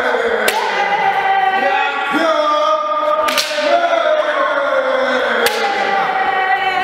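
Several kendo practitioners shouting long, drawn-out kiai, the calls overlapping and falling in pitch, with three sharp cracks of bamboo shinai striking.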